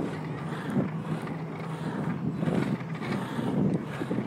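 Ripstik caster board's two wheels rolling and carving over a concrete sidewalk: a steady rumble with a low hum and irregular small knocks, with wind on the microphone.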